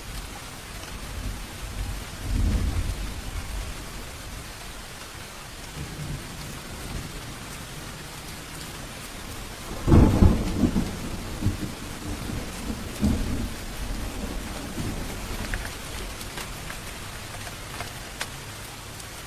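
Steady rain falling, with thunder: a low rumble about two seconds in, then a sudden, loud thunderclap about halfway through that rolls on in rumbles for several seconds.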